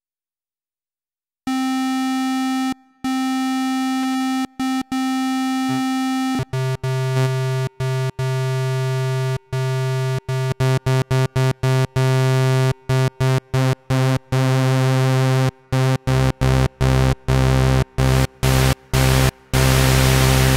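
Roland Juno-X synthesizer's Juno-106 model, starting from its init patch: a plain, buzzy synth tone, first one held note, then a lower chord re-struck over and over in short, quickening stabs. About sixteen seconds in, a deeper low end comes in and the top grows brighter and hissier as the panel sliders are moved.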